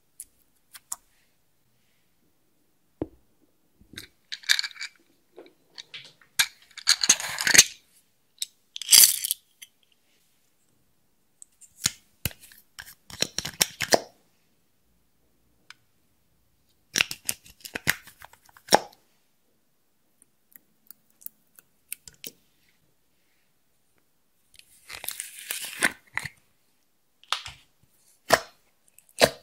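Slime being worked by hand, giving sticky crackles and clicks in short bursts with silent pauses between them.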